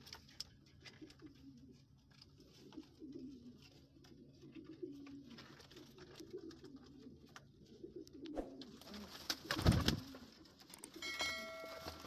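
Domestic high-flyer pigeons cooing softly throughout. About ten seconds in, a loud flurry of wingbeats is the loudest sound, followed shortly by a brief ringing tone.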